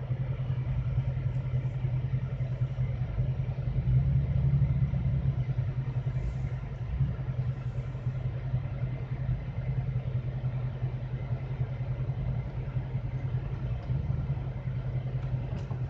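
Jeep engine running at a slow off-road crawl, heard from inside the cabin as a steady low drone that swells a little about four seconds in.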